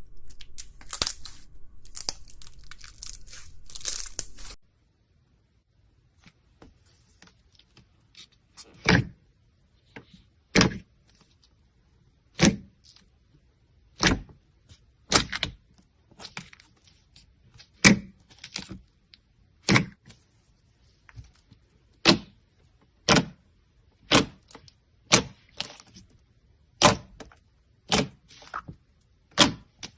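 Slime being handled: a few seconds of dense crackling, then, after a short pause, a long series of sharp pops about every second or so.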